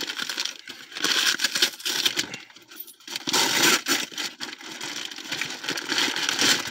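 Bag crinkling and rustling in irregular bursts as it is handled and a plush toy is pulled out of it.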